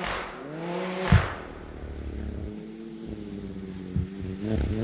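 A 2023 Ski-Doo Expedition Xtreme's turbocharged Rotax 900 ACE Turbo R engine, breathing through a Straightline trail muffler, revving as the snowmobile approaches. Its pitch climbs over the first second, drops, and holds steady. There are two short, sharp bursts, about a second in and near four seconds, and the engine grows louder near the end.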